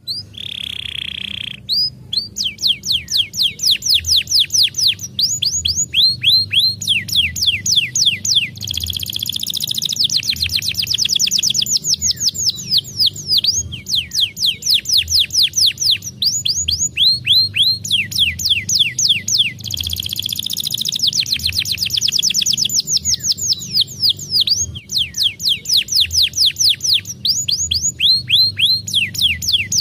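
Canary singing a long, unbroken song of fast trills, each trill a run of quick falling whistles, switching to a new trill type every second or two, with a short buzzy note at the very start.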